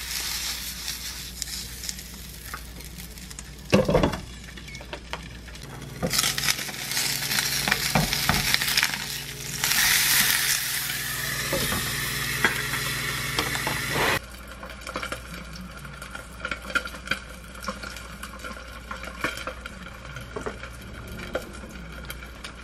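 Mackerel fillet sizzling in oil in a frying pan, with a few sharp knocks, loudest a little past the middle. The sizzle cuts off suddenly about 14 seconds in, leaving quieter scattered clicks.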